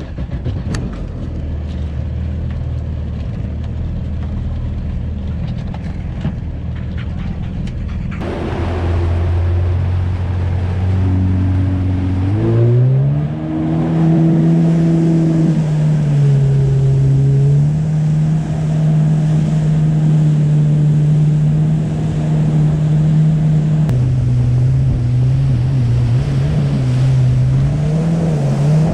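Jet ski engine running low and steady, then rising in pitch about twelve seconds in as it accelerates, and holding a steady higher tone at speed. Rushing water is heard from about eight seconds on.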